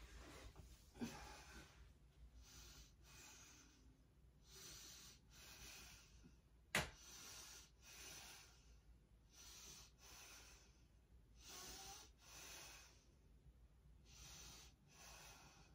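Faint, quick breaths in and out, about one a second, from someone holding a yoga wheel pose (full backbend). One sharp click comes about seven seconds in.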